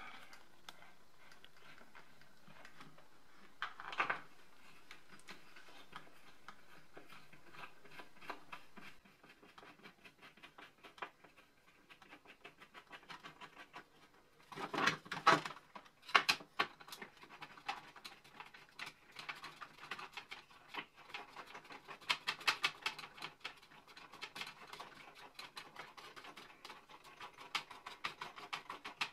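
Hands handling a plastic Dyson wall dock and its screws against drywall: a faint steady hiss at first, then a long run of small clicks, taps and scratches with a few louder knocks as the dock is positioned and the screws are worked in.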